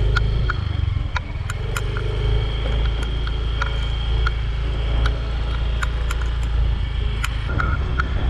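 Small motor scooter running at low riding speed, with a steady low rumble from the engine and wind on the microphone. Light ticks and rattles come at irregular intervals throughout.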